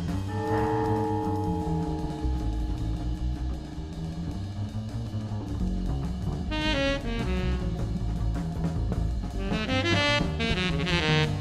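Jazz band recording: a tenor saxophone holds a long note near the start, then plays fast runs in the second half, over upright-style bass and a drum kit.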